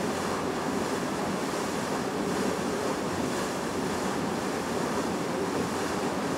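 Bow wave of a Hurtigruten coastal ship rushing and splashing steadily against the hull as it moves through the water, with wind buffeting the microphone.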